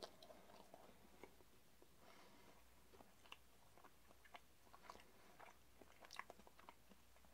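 Faint chewing of a chicken burrito in a soft flour tortilla: a person's mouth making scattered soft clicks and smacks at an irregular pace.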